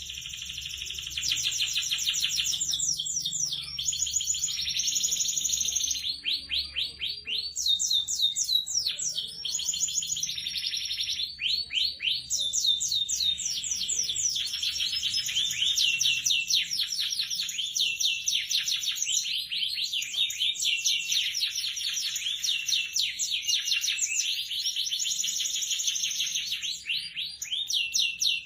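Domestic canary singing in full song: long, rapid trills and rolling warbled phrases strung together with only brief pauses between them.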